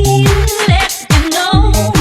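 UK garage dance music: a kick drum whose pitch drops on each beat over a deep bassline in a steady rhythm, with the music cutting out briefly about a second in.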